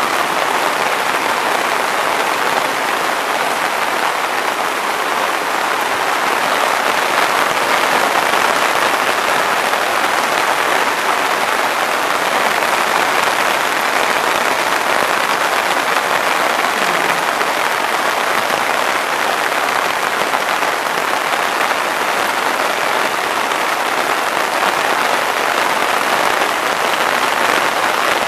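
Loud, steady downpour of heavy rain on leaves and waterlogged ground, an even hiss that doesn't let up.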